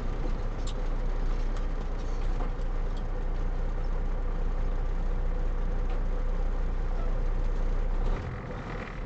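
Truck engine running with a steady low rumble and road noise, heard from inside the cab. The rumble drops off briefly near the end.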